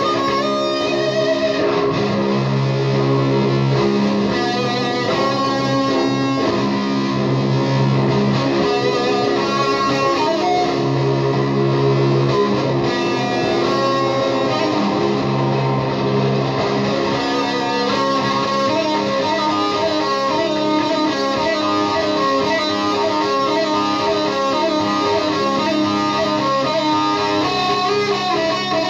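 Electric guitar played through an Orange amplifier: psychedelic noise guitar, with new notes picked over a steady bed of looped, sustained tones.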